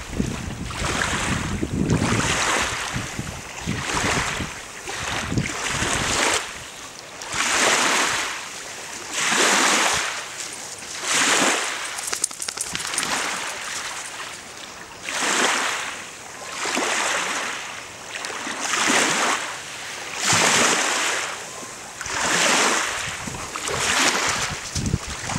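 Small waves washing onto a lake shore, a swell of hiss rising and falling about every one and a half to two seconds.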